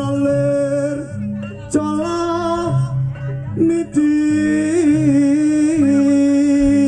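Javanese jathilan dance music: a voice sings long held notes with a slight waver over a repeating low instrumental pattern.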